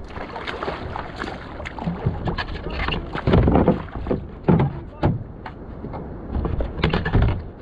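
Sea water sloshing and slapping against a fishing kayak's hull, with irregular knocks on the hull and wind on the microphone. Louder splashes come in uneven bursts.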